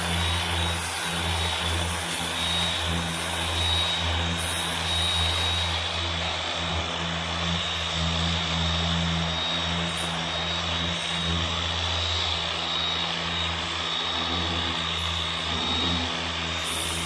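Electric angle grinder with an 80-grit sanding disc running steadily, sanding down cured Bondo body filler on a cracked dash pad. A low motor hum and a steady high whine sit over the hiss of the abrasive on the filler.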